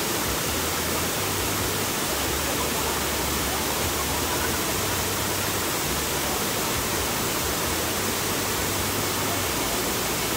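Steady rush of a broad waterfall spilling over a stone wall into a shallow pool.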